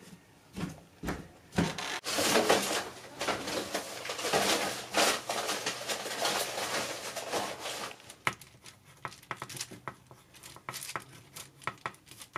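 Several seconds of close rustling and handling noise, then a run of short, quiet scratches of a pen drawing on paper.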